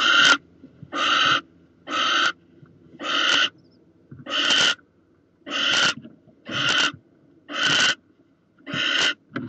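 Barn owls making harsh, rasping hiss calls of about half a second each, repeated roughly once a second.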